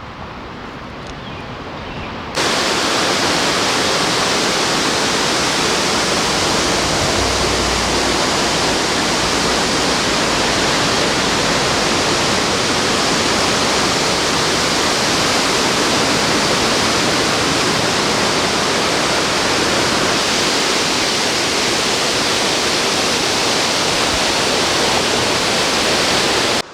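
Hog's Back Falls on the Rideau River, a loud steady rush of falling water heard close to the falls. It comes in suddenly about two seconds in, after a softer rush of flowing water, and cuts off abruptly at the end.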